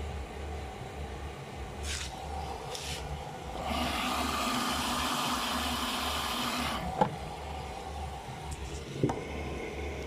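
Whirlpool FL 5065 front-loading washing machine in its rinse cycle, a low pulsing hum underneath. Partway through comes a rush of water lasting about three seconds as fresh rinse water pours in through the detergent drawer. Two sharp clicks follow, about two seconds apart.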